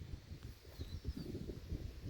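Wind buffeting the microphone in uneven gusts, with a short high bird chirp about a second in.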